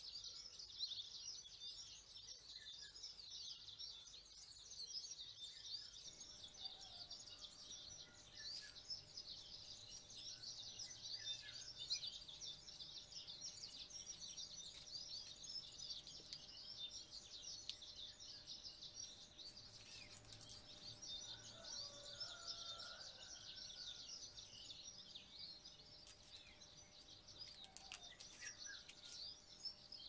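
Faint outdoor background of birds chirping: a dense, steady twitter of high chirps throughout, with a few clearer, lower calls now and then.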